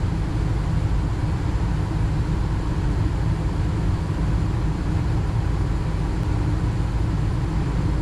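Induced-draft low-NOx natural gas furnace running about a minute after light-off, burners lit with NOx rods in place and the inducer fan on: a steady low rumble.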